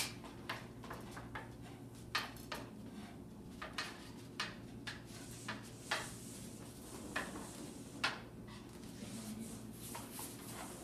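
Irregular light clicks and knocks of a retractable banner stand's top crossbar and support pole being handled and fitted together, the sharpest right at the start and about eight seconds in.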